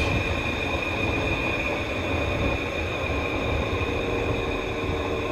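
Whirlpool top-load washing machine running with its lid open and the lid latch removed: a steady low rumble with a constant high whine over it.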